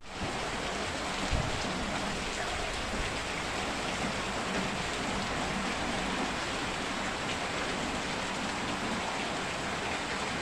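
Heavy rain pouring steadily onto a flooded yard, with runoff streaming off the roof edge.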